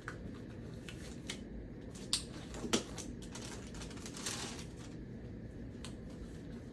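Sterile surgical gloves being pulled on: a few sharp snaps and light rubbery clicks, with a brief crinkling rustle of the glove wrapper about four seconds in, over a steady low hum.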